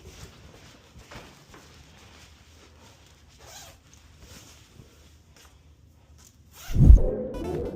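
Faint rustling with small scattered clicks, then a sudden loud low thump near the end.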